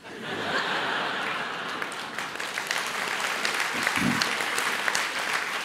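Audience applauding. The clapping starts suddenly and keeps on steadily.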